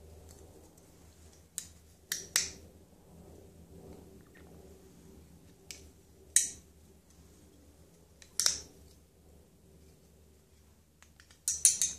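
Folding knife being opened and closed by hand: sharp metallic clicks of the blade snapping into place, a pair early, single clicks a few seconds apart, and a quick cluster near the end.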